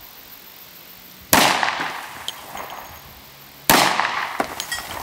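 Two shots from an IMI Desert Eagle pistol in .357 Magnum, about two seconds apart, each followed by a long echo tail.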